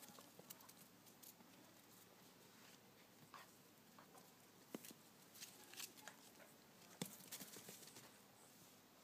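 Near silence, broken by a few faint, short ticks and scuffs scattered through the middle and later part, the clearest about five and seven seconds in.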